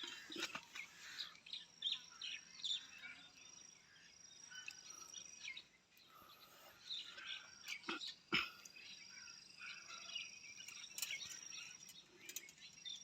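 Outdoor birds chirping and calling over a steady high insect drone, with a few sharp knocks, the loudest about eight seconds in.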